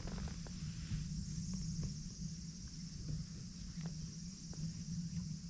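Tabby cat purring in a steady low rumble while being stroked under the chin, with faint rustles of fur and grass under the hand.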